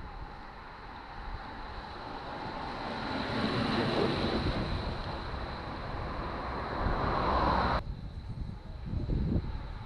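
Group of racing bicycles passing close at speed: a rising rush of tyre and wheel noise that peaks about four seconds in, over wind rumble on the microphone. The sound cuts off suddenly about eight seconds in.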